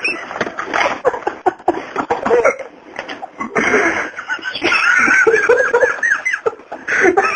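A person laughing in repeated choppy bursts, rising into longer wavering peals in the second half.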